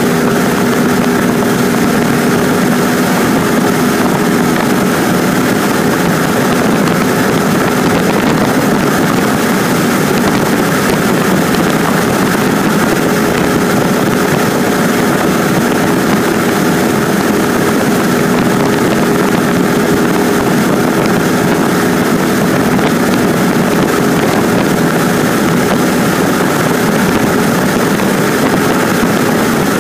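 Cessna 150's four-cylinder Continental O-200 engine and propeller droning steadily in flight, heard from inside the cabin over a constant rush of air.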